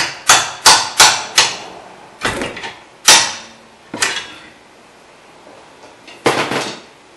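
Hammer tapping a new ball joint up into the lower control arm: sharp metallic knocks, a quick run of about five, then slower single ones, the last near the end ringing a little longer.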